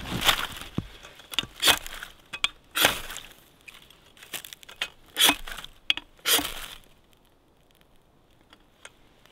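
Ferro rod scraped hard with a metal striker about six times, each stroke a short harsh rasp, throwing sparks onto birch bark tinder to light a fire; the strikes stop about seven seconds in.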